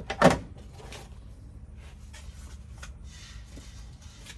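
A sheet of sound-deadening material being handled and pressed into a van's body panel: a short loud knock at the very start, then faint rustling and small clicks.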